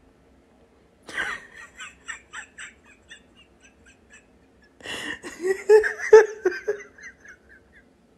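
A person giggling in two bouts, each a quick run of short laughs that trails off; the second bout, starting about five seconds in, is louder.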